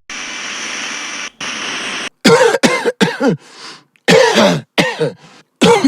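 A steady hiss for about two seconds, broken by a short gap. Then a person coughs over and over in quick fits of several harsh coughs each, the pitch of each cough dropping.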